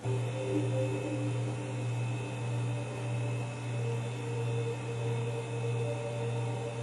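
Low droning music: a deep steady drone that begins suddenly, with held tones above it that slowly shift.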